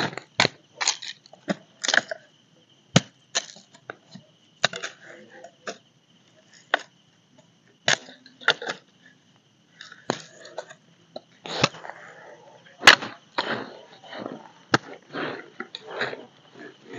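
Machete chopping and splitting sticks of firewood: irregular sharp blows of the blade into wood, a dozen or more, some with a splintering crack.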